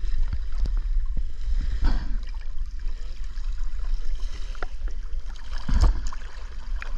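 Seawater sloshing and splashing around a camera held at the water's surface, over a steady low rumble from a panga's outboard motor running close by. One louder slosh comes near the end.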